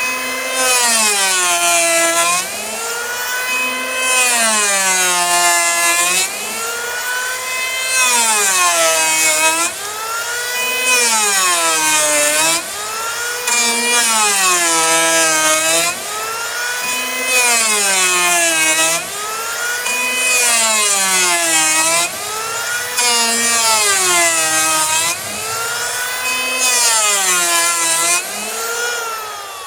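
Electric hand planer cutting a hickory slab in back-and-forth passes, its motor pitch rising and falling with each stroke about every two seconds, a hiss of shavings on every cut. Near the end the planer is switched off and winds down.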